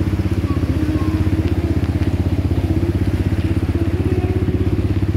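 Small motorcycle engine running at a steady speed, its exhaust pulsing rapidly and evenly.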